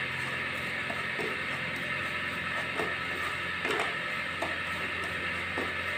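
A spoon scraping around a pan as roasted gram flour, ghee and sugar are stirred together, a few short strokes over a steady hiss.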